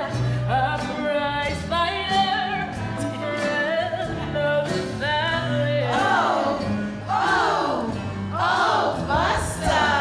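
Live stage-musical number: cast singing over band accompaniment with a steady, repeating bass line. From about six seconds in, a run of high voice-like glides swoops up and down.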